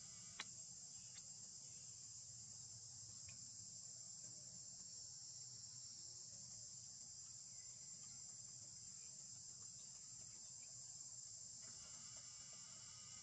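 Steady high-pitched insect chorus, with a single sharp click about half a second in.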